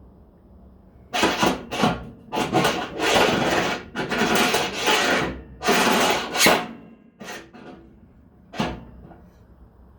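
A series of rough scraping or rasping strokes, about six in quick succession, then two short ones near the end.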